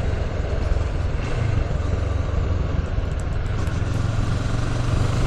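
CFMOTO 650NK's 649 cc parallel-twin engine running steadily while the bike is ridden, with wind and road noise over it.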